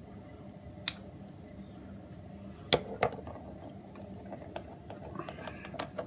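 Scissors snipping through plastic bird netting: a sharp snip about a second in, two loud snips close together near the middle, then a run of lighter clicks toward the end.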